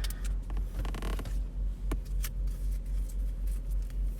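Trading cards being slid into plastic sleeves and top loaders: a short plastic rasp about a second in and a few light clicks of handling, over a low, evenly pulsing hum.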